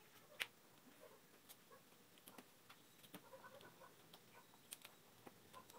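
Near silence with faint, scattered clicks and handling noise of fingers working a plastic wiring connector and its tape; one sharper click about half a second in.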